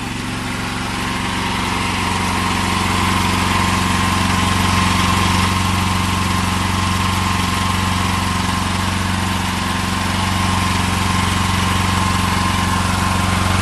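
Small petrol engine of a portable fire pump running steadily. It grows a little louder over the first few seconds, then holds an even pitch.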